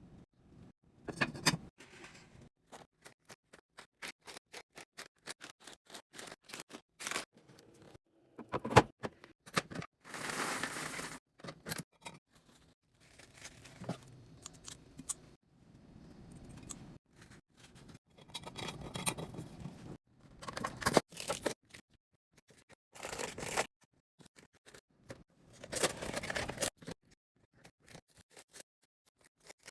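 Restocking a fridge with snacks and packaged goods: a long run of small clicks and taps as items are handled and set down, with several longer bursts of rustling, tearing packaging.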